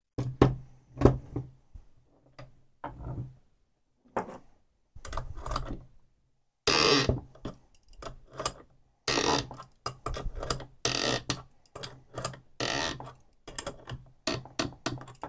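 Adjustable wrench working the nut of a threaded-rod puller, irregular metallic clicks and scrapes as the wrench is turned and re-set, slowly drawing a chainsaw's crankcase halves together.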